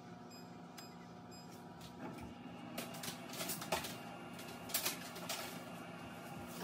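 Induction cooktop switched on under a stainless steel saucepan of water: a steady electrical hum, with three short, faint high beeps in the first second and a half as the touch controls are pressed. From about two seconds in, a hiss and scattered ticks and clicks rise as the pan heats.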